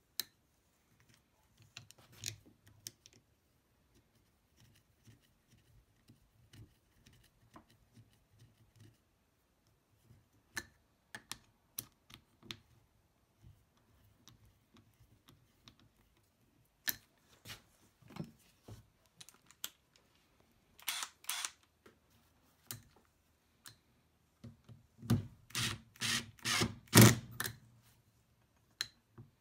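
Metal parts clicking and knocking as they are handled, with a short rattle about two-thirds of the way in and a run of about five sharp knocks near the end, the last the loudest.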